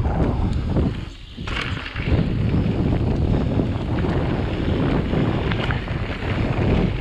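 Wind buffeting the microphone over tyre noise and the rattling and clattering of an electric mountain bike ridden down a rough trail. It goes briefly quieter a little after a second in.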